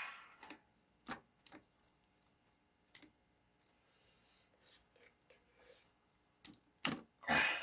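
A metal spoon clicking and scraping against a metal can and a stainless steel frying pan as stiff, old shortening is scooped out and dropped into the pan: scattered light taps, with a louder scrape near the end.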